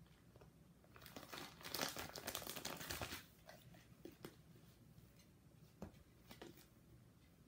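Plastic binder pocket pages and baseball cards being handled: a crinkling rustle for about two seconds near the start, then a few light clicks and rustles.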